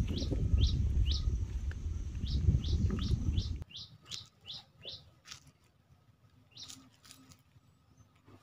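A bird calling with a row of short, high, downward-sliding chirps, about two a second. Under it runs a loud low rumble that cuts off suddenly about three and a half seconds in. After that a few more chirps and faint scattered clicks remain.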